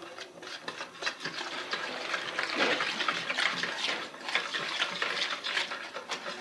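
Flour being mixed into an oil-and-water mixture in a bowl to make a wet batter: an irregular run of wet stirring and squelching sounds.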